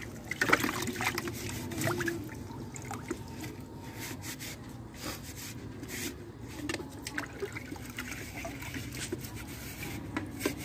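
Water trickling and splashing with small knocks as a chicken water drinker is washed out and scrubbed inside to clear away algae.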